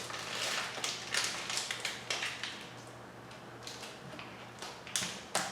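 Metal screw cap and arm of a Stelton hand coffee grinder being twisted and worked loose, with irregular scraping and tapping of metal on metal, and two sharp clicks near the end. The cap is stiff after being left on a long time.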